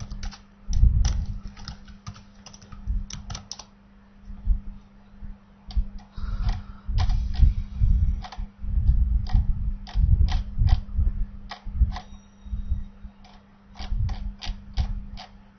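Computer keyboard keys being pressed in irregular runs of clicks, as at a terminal, over a steady low hum.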